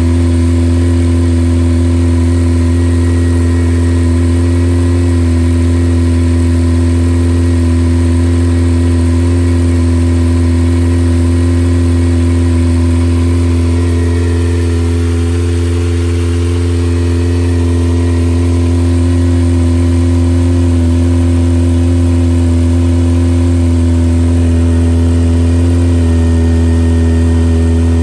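Kawasaki ZX-25R's 250 cc inline-four idling steadily through a Yoshimura R77 full exhaust, warming up after a cold start; the note dips slightly about halfway through and shifts a little near the end.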